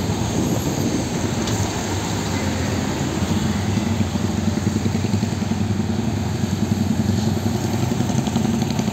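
Diesel engine of a Mercedes-Benz tractor-trailer truck pulling away, a steady low rumble that grows a little stronger a few seconds in, with motor scooters running alongside.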